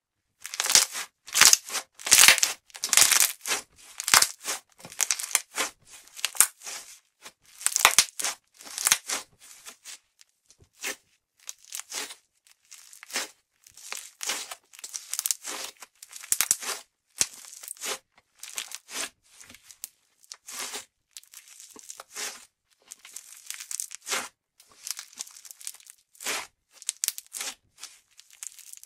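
Hands squeezing, pulling apart and pressing pink putty slime: an irregular run of sticky tearing crackles and pops, loudest and most frequent in the first third, then sparser and softer.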